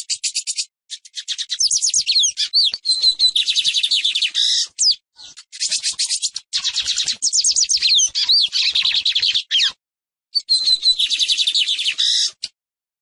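Lined seedeater (Sporophila lineola) singing: a rapid, high-pitched twittering song of quick notes and short sweeps, in several long phrases separated by brief pauses.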